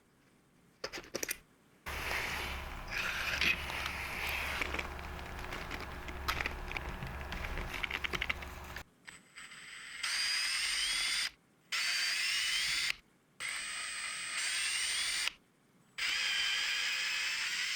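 Electric screwdriver working screws out of the skateboard's wheel and drive-gear assembly. First comes several seconds of clicking and rattling, then the motor whines in four short runs, its pitch rising within each run.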